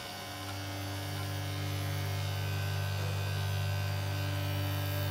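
Kemei electric hair clipper running with a steady hum as it shaves through a dog's matted fur, growing louder over the first couple of seconds.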